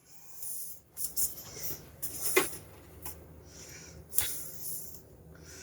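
Light handling noises as a plastic RC monster truck body is set onto its chassis and tried for fit: soft rustling with a few small clicks and taps, the sharpest about two and a half seconds in and just after four seconds.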